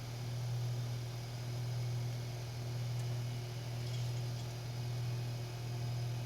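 A steady low hum with an even hiss behind it, swelling gently and evenly about every second and a half.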